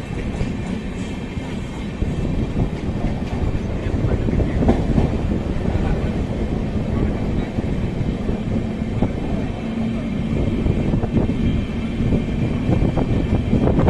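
Train running along the track: steady noise of wheels on rails with a low hum and scattered faint clicks.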